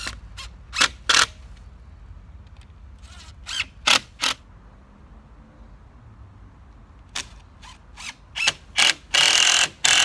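Cordless drill-driver run in short trigger bursts, a whine that spins up and stops, then held for a longer steady run of a second or so near the end, driving screws into the wooden frame of a chicken run.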